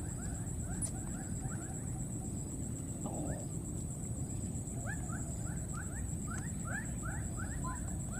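Outdoor ambience: an animal chirping over and over in short rising chirps, about three a second, with a steady high thin whine and a low rumbling noise underneath.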